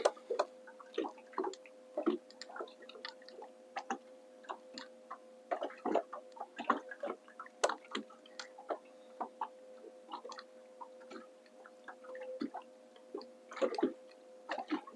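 Small waves lapping against a fishing boat's hull, heard as irregular light ticks, drips and splashes over a faint steady hum.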